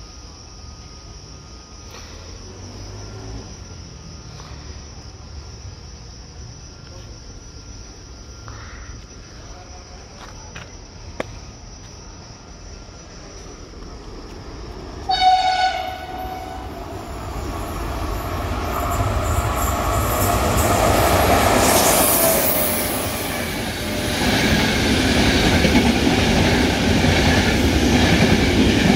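An Intercity train's E401 electric locomotive gives one short horn blast about halfway through. The train then draws near and passes along the track at speed, its rumble and wheel noise rising and staying loud as the coaches go by.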